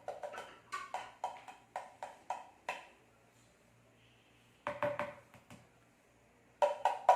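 A utensil tapping repeatedly on a container that rings at the same pitch with each tap, about three taps a second at first, then a short burst of taps near the middle and another near the end.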